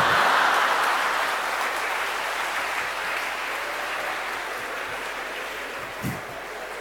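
Large audience applauding, loudest at first and slowly dying away.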